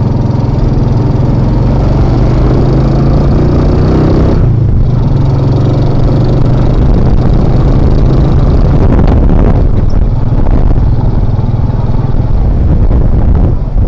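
Motorcycle engine of a Philippine tricycle (motorcycle with sidecar) running under way over a steady hiss. Its pitch rises for the first few seconds, drops out briefly about four and a half seconds in, then picks up and runs on steadily.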